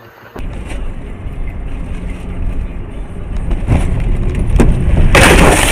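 Car road and engine rumble heard from inside the car, growing louder, with a couple of knocks, then a loud crash about five seconds in as the car collides with another vehicle.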